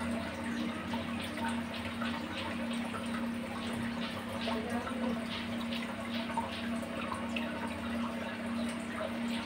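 Aquarium water splashing and trickling in many small, irregular drips at the surface, over a steady low hum.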